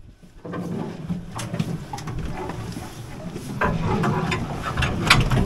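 A boat's engine running with a steady low hum under wind and water noise, with scattered clicks and knocks from the rod, reel and rail as a heavy fish is reeled in; one sharp knock stands out near the end.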